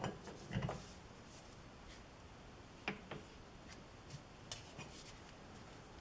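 A few faint metallic clicks and knocks from a lathe's four-jaw chuck being adjusted and turned by hand while the work is centred: a couple near the start, two close together about three seconds in, and lighter ticks a little after four seconds.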